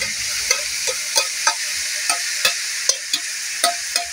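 Shredded young jackfruit sizzling in hot oil as it is tipped into a wok of sautéed garlic, onion, ginger and tomato. A metal spoon scrapes it out of a ceramic bowl with sharp, uneven knocks, two or three a second.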